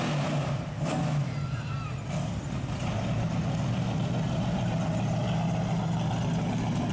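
Supercharged drag-car engine in a Pontiac Firebird, open exhaust, running with a steady low rumble as the car rolls slowly past.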